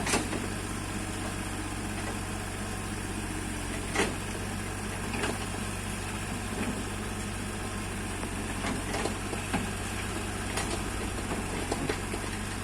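Bobcat mini excavator's diesel engine running steadily at a low, even speed, with occasional sharp knocks over it: a few near the start and middle, and a cluster near the end.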